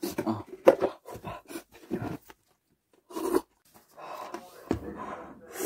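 A person breathing hard in short, quick huffs and gasps from the burn of spicy noodles, mixed with light scraping and rustling of the noodle cup.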